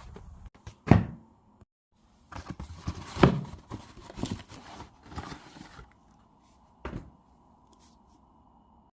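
Hands handling a boxed Blu-ray set and its packaging: three sharp thunks as it is knocked or set down, about a second in, around three seconds in and near seven seconds, with rustling and scraping between them.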